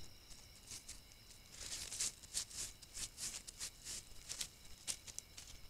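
A crab-eating raccoon rustling and nosing right at the camera trap: a quick run of short, sharp scratchy clicks close to the microphone, starting about a second and a half in, bunched in the middle, with a few more near the end.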